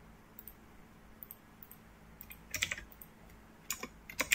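Computer keyboard keys being pressed sparsely: a few separate keystrokes, with a short run of typing about two and a half seconds in and a couple more near the end.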